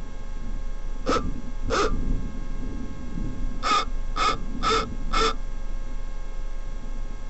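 Six short, harsh animal calls, two close together and then four in quick succession about half a second apart, over a steady low rumble.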